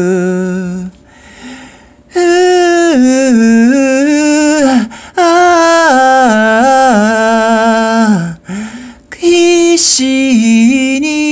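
A single voice singing a slow, unaccompanied melody in three phrases, with long held notes, vibrato and falling glides at phrase ends, and short breaths between phrases.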